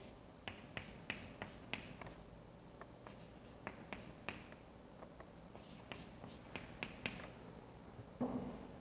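Chalk tapping and scratching on a chalkboard as an equation is written: a string of irregular sharp taps, with a brief, louder low sound near the end.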